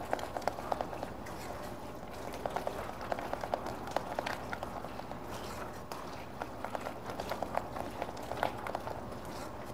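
Thick crème pâtissière being whisked in a saucepan over medium-high heat to fully cook the starch: a quick, irregular run of small clicks and pops from the whisk and the thickening cream.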